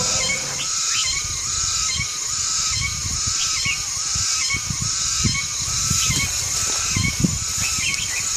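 Short animal calls repeating about twice a second over a steady high-pitched drone, with scattered low thumps.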